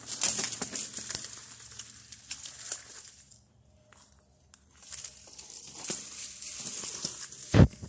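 Dry reed stalks crackling and rustling underfoot and against the body as someone pushes through a reed bed on foot. The noise stops for about a second and a half around the middle, then resumes, and there is one loud thump near the end.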